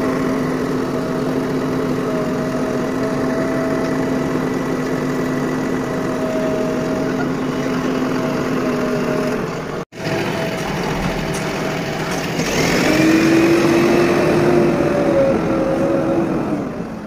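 Heavy diesel engine running steadily, broken by a brief dropout about ten seconds in; a couple of seconds later it revs up to a higher, louder pitch and holds there, easing off near the end.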